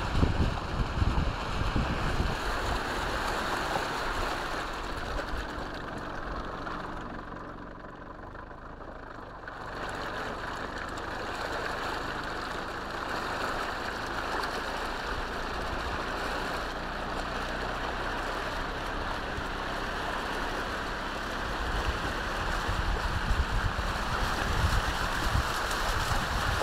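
A vehicle wading slowly through floodwater covering a road: steady rush and slosh of water pushed aside by the body, with the engine running underneath. It dips quieter for a few seconds about a third of the way in.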